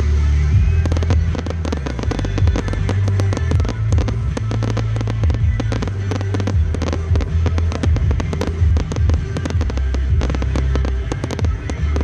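Fireworks display: aerial shells bursting with dense, rapid crackling and popping, over music with a heavy bass line.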